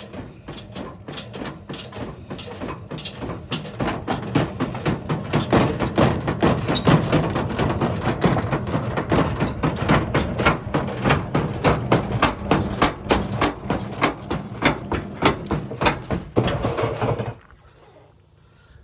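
Simpson washing machine knocking repeatedly and evenly, about three or four knocks a second, growing louder over the first few seconds, then stopping suddenly near the end.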